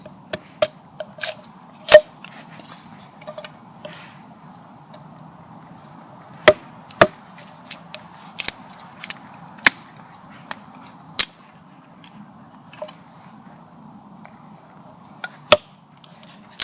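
Wood being split by hand into kindling: well over a dozen sharp, irregular knocks and cracks, the loudest about two seconds in.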